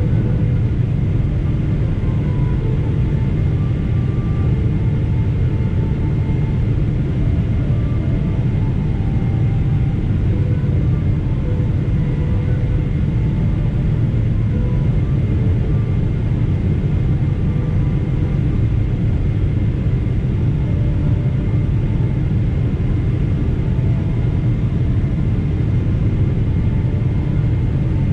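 Steady low rumble of engine and airflow noise inside the cabin of a Boeing 777-300ER on final approach, its GE90 turbofans at approach power. There is no sudden change or thump.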